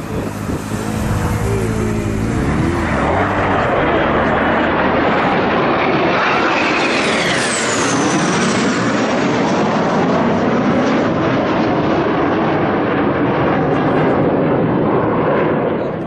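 Alpha Jet display jets passing low and fast: a loud, steady jet rush with a high whizzing whistle that falls in pitch about seven to eight seconds in as they go by.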